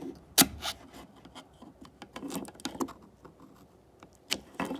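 Handling noises from the parts of a partly disassembled Bosch hammer drill: a sharp knock about half a second in, scraping and rubbing in the middle, and two more knocks near the end.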